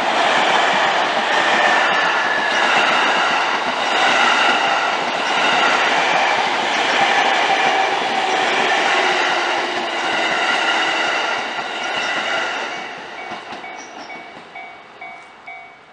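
A train on the JR Takasaki Line passing through a level crossing, with a loud rushing rumble of wheels on rail. The rumble fades about 13 seconds in, leaving the Japanese crossing's warning bell ringing steadily about twice a second.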